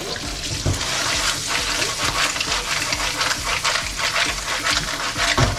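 Snails in their shells sizzling and crackling in a frying pan of hot lard with sobrasada and ham as they are sautéed, the pan shaken and tossed over the gas flame.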